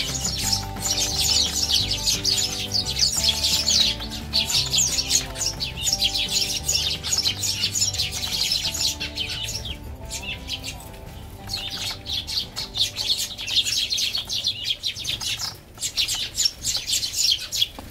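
A flock of Eurasian tree sparrows chirping continuously in a dense, overlapping chatter, with a few brief lulls. Soft background music with held notes and a slow melody plays underneath.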